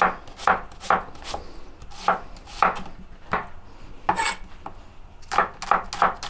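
Chef's knife slicing red onions on a cutting board: a string of sharp chopping strokes at an irregular pace, roughly two a second.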